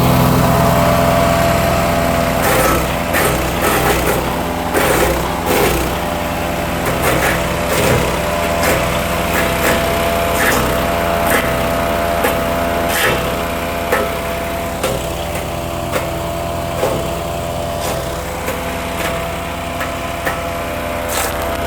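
420cc gas-engine wood chipper running steadily, with sharp, irregular cracks and snaps from about two and a half seconds in as wood is fed through and chipped.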